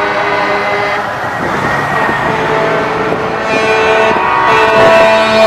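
Semi-truck air horns blowing as the trucks pass, held chords one after another, louder from about three and a half seconds in, over the running of the trucks.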